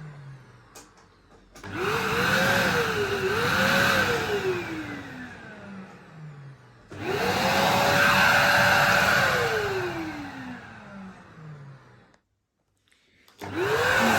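Arzum vacuum cleaner's motor switched on three times, each time spinning up with a rising whine. Twice it winds down with a falling pitch, after a few seconds of running on its single, strong suction setting.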